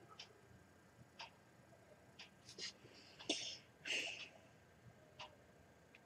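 Faint, scattered small clicks and light taps of something being handled, with two short hissing sounds, one a little past three seconds in and one about four seconds in.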